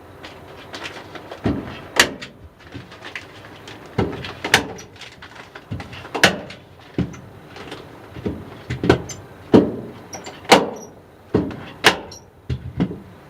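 Manual staple gun driving staples through the paper facing of insulation: a sharp snap every second or two, with softer knocks and handling in between.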